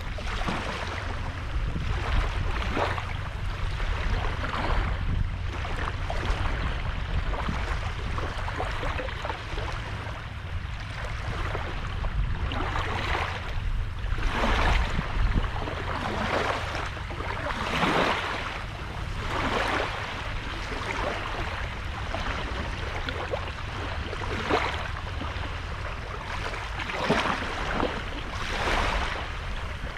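Small sea waves breaking and washing on a sandy shore, a splash every second or two over a steady low rumble. The waves are strongest about halfway through.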